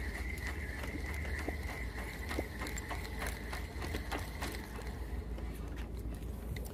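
Fishing reel being cranked to retrieve a cast lure: a fast, irregular clicking with a thin steady whine that fades out about five seconds in, over a low rumble.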